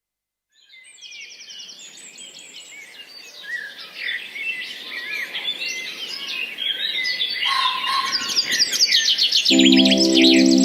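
Many songbirds singing together, overlapping chirps and trills, fading in from silence and growing steadily louder. Near the end a sustained low musical chord comes in under the birdsong.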